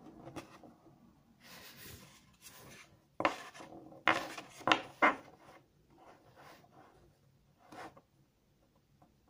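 Cardboard trading cards handled on a tabletop: a series of short scrapes and rubs as a card is slid into place beside others, loudest between about three and five seconds in, with a last brief rub near the end.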